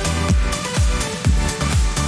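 Background electronic dance music with a steady, punchy kick drum about twice a second.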